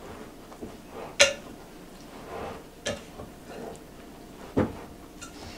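A spoon stirring a thick, stiff mixture of coconut, powdered sugar and condensed milk in a glass mixing bowl: soft scraping, with three sharp clinks of the spoon against the glass, the loudest about a second in.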